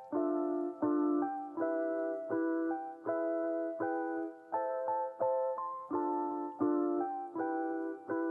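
Background piano music: soft chords struck at a steady, unhurried pace, about one every three quarters of a second.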